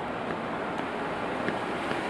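Steady rain with the wet hiss of city traffic on rain-soaked streets, and a few faint raindrop ticks.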